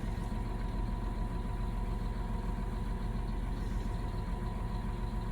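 A farm tractor's common-rail diesel engine idling with a low, even hum and a faint steady whine above it.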